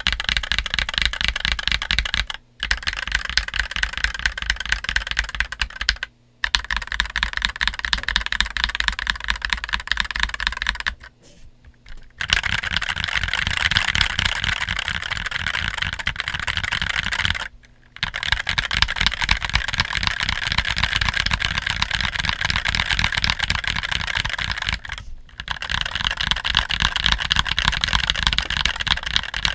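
Continuous typing on an MK870 mechanical keyboard with its stock steel plate and plate-mounted stabilizers, JWK Black linear switches and DCX keycaps: a fast, dense clatter of keystrokes. The typing stops briefly five times, the longest gap about 11 seconds in.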